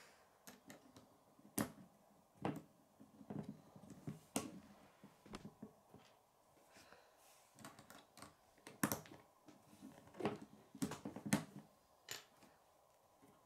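K'nex plastic rods and connectors being clicked together and handled during assembly: irregular sharp clicks and taps, a few louder snaps among softer rattles.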